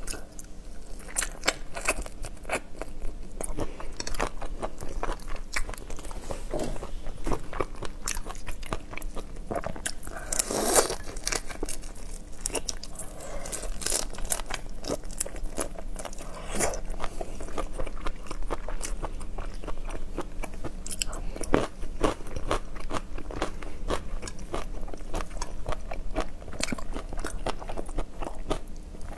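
Close-miked crunching and chewing of whole raw shrimp, shells included: a dense run of crisp cracks and crackles, with one louder crunch about ten seconds in.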